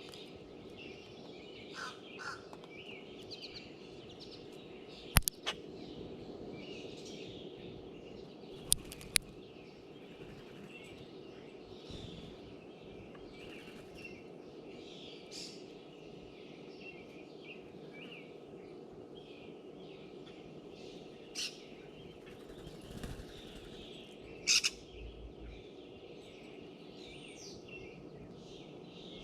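Small birds chirping and calling around a tray feeder, short high notes scattered throughout over a steady low background hum. A few sharp, loud clicks close to the microphone stand out, about five seconds in, twice near nine seconds, and again near the end.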